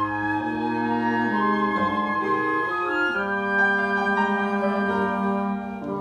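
Live flute and upright piano playing a slow classical-style piece together, with long held notes that shift to new pitches every second or so.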